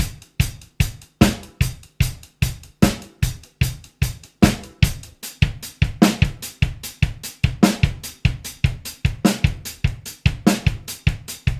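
Drum kit playing a funk coordination exercise: a steady sixteenth-note hi-hat, snare on beats 2 and 4, and the bass drum shifting through the sixteenth-note placements.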